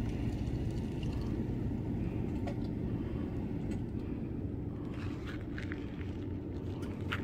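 A steady low rumble, easing off slightly, with a few faint clicks in the second half.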